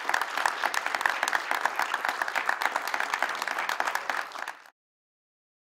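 Audience applause: many hands clapping in a dense patter that cuts off suddenly near the end.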